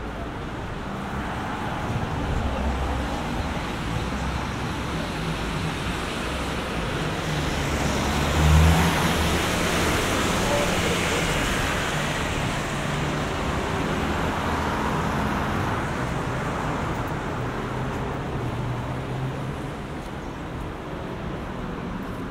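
Road traffic on a wet street: tyres hissing on the wet tarmac as vehicles pass. It is loudest about eight seconds in as a double-decker bus goes by close, its engine humming low, then it slowly fades.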